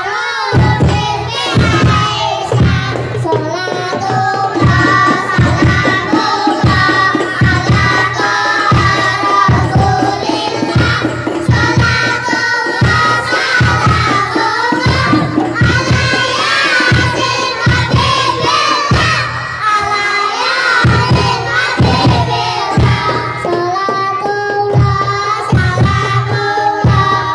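Young children singing together into microphones, accompanied by rebana frame drums beating a steady rhythm of about two strokes a second.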